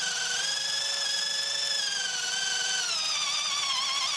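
Titanium T12 12 V cordless drill/driver running in high gear (speed 2) with a spade bit in wood: a steady motor whine that sags in pitch over the last second as the motor bogs down under the load, too weak to drive the bit at this speed.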